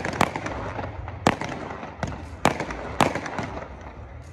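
Fireworks display: sharp bangs of bursting shells, about six in four seconds at uneven spacing, with steady background noise between them.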